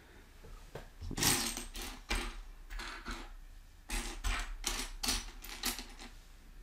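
Loose plastic Lego pieces clicking and clattering as they are handled and picked through, a string of short, sharp clicks and rattles at irregular intervals.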